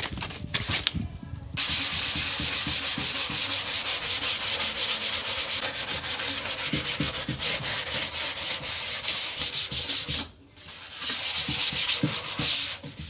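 Hand sanding of a bare MDF subwoofer box with 220-grit sandpaper: rapid back-and-forth rasping strokes begin about a second and a half in, stop briefly about ten seconds in, then resume. It is a light sanding to scuff the MDF surface before painting.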